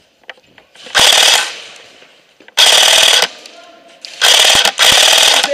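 Airsoft rifles firing four short full-auto bursts, each about half a second long, with a rapid mechanical rattle of shots.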